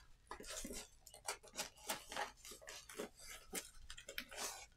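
Faint, irregular crackles and ticks of a rolled diamond painting canvas and its clear plastic cover film being unrolled and smoothed flat by hand.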